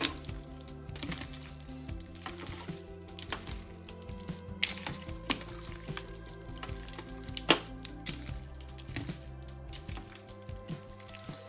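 Raw chicken pieces being squeezed and tossed by hand with seasoning in a plastic colander: wet squelching with scattered sharp clicks, the loudest about seven and a half seconds in. Background music plays underneath.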